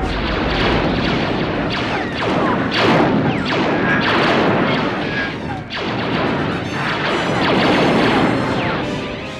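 Loud, continuous action-film sound effects: booms and crashes layered with many short falling whistling tones, with no break.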